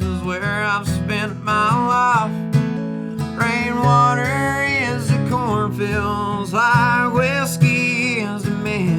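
Acoustic guitar strummed in a country song, with a wavering melody line held over the chords.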